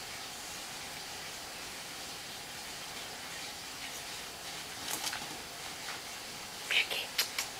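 Steady hiss of a quiet room, with a couple of faint short clicks about five seconds in and a quick cluster of brief, sharp clicks or squeaks near the end.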